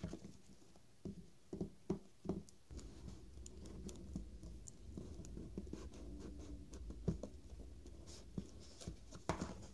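Cardboard phone box being handled: a few light knocks, then a long, quiet rubbing and scraping as the white paper sleeve slides off the inner box.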